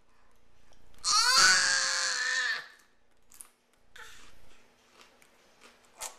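A dog whining in a long, loud, wavering wail about a second in, then a shorter, quieter whine a few seconds later, with a few light clicks.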